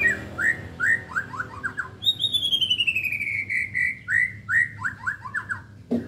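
Nine-month-old white-rumped shama (murai batu) singing a loud, harsh full song: a string of quick rising whistled notes, then about two seconds in a long rapid trill that slides down in pitch, then more quick rising notes.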